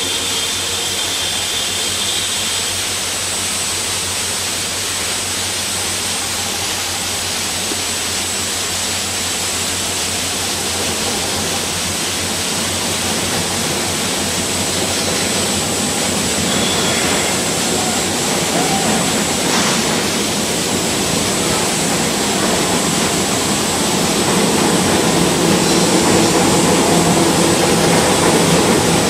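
WDP 4B diesel locomotive with its turbocharged EMD engine, and the train behind it, running as a steady roar under a rushing hiss. Louder in the last few seconds as it draws near, with a low engine hum coming through.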